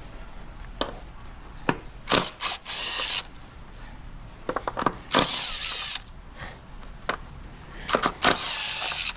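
Ratchet wrench with a 10 mm socket loosening the ignition coil bolts on a 2019 Hyundai Elantra engine: three bursts of ratcheting, about a second each, with sharp single clicks between them.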